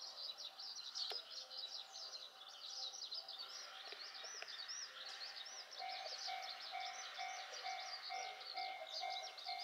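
Small birds chirping steadily. About six seconds in, a station train-approach warning starts: a steady-pitched electronic tone pulsing on and off, signalling that a train is approaching the platform.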